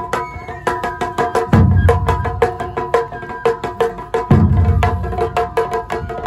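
Live Japanese taiko drum ensemble: a large drum booms deep about every three seconds, over rapid sharp wooden clicks several times a second and a held, reedy melody line.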